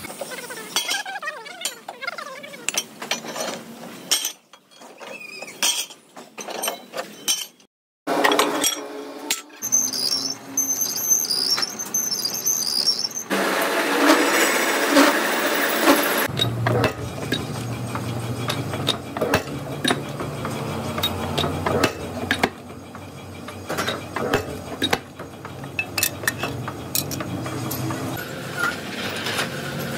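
Heavy-workshop metalworking sounds in turn. First come sharp hammer strikes on thick steel plate, knocking out gas-cut discs. Next a machine tool cuts steel with a high, repeating squeal and a dense grinding noise. Last, a machine motor hums steadily under light metallic clinks.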